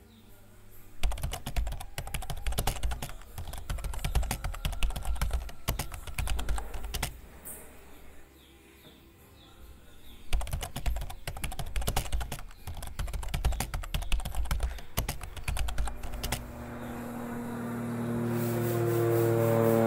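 Two spells of dense, rapid clicking and rattling with a quieter gap between them. Then a steady droning tone with overtones swells in and grows louder over the last few seconds.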